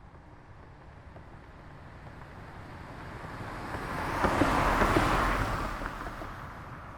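A car passing by: the tyre and engine noise builds steadily, is loudest about four to five seconds in, then fades away as it recedes.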